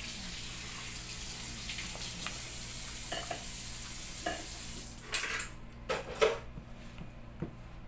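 A silicone spatula stirring and scraping thick chocolate cake batter around a plastic tub, with short scrapes and knocks against the side. A steady hiss runs under the first part and stops about five seconds in.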